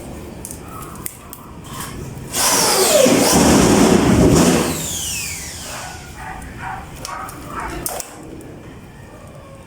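A power tool motor starts suddenly about two seconds in, runs loudly for about two seconds, then winds down, with a falling whine as it slows.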